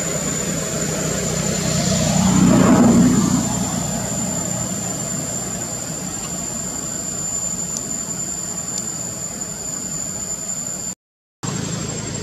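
Steady outdoor background noise with a constant high-pitched whine, and a passing engine that swells and fades about two to three seconds in. The sound cuts out for about half a second near the end.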